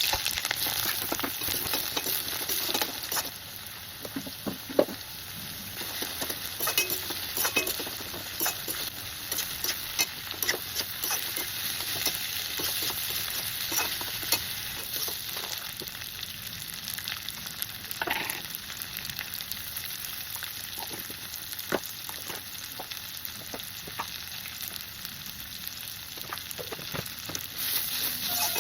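Bitter gourd sabzi sizzling as it fries in a pan, with a spatula repeatedly scraping and clicking against the pan as it is stirred.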